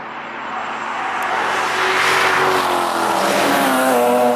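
Cars' engines at speed passing on a race circuit, growing louder over the first two seconds, with the engine note sliding up and down in pitch as the revs change.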